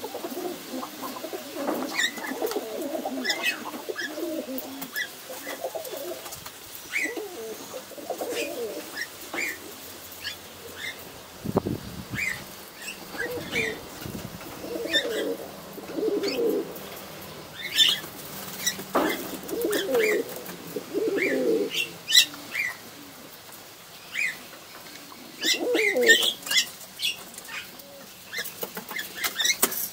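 Domestic pigeons cooing in repeated bouts, with a few sharp wing claps of pigeons flapping and short high chirps scattered throughout.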